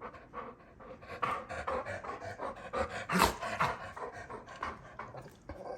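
Dog panting in quick, even breaths, several a second, with one louder breath or vocal sound about three seconds in.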